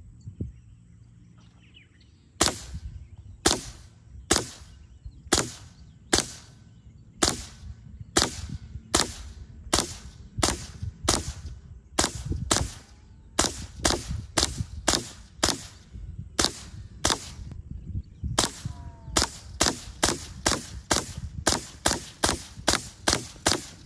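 Hatsan Blitz .30 caliber PCP air rifle firing single shots one after another, around three dozen sharp cracks starting a couple of seconds in. They come about one a second at first and quicken to two or three a second toward the end.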